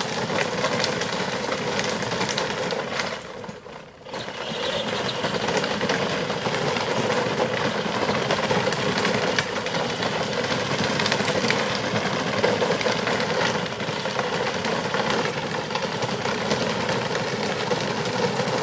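Children's battery-powered ride-on quad driving along a gravel path: its electric motors and gearboxes whir steadily while the plastic wheels crunch over the gravel. The sound drops away briefly about three and a half seconds in, then carries on.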